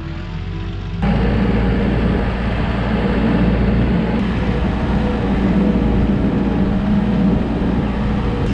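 A heavy vehicle engine running steadily under load. It gets abruptly louder about a second in and then holds.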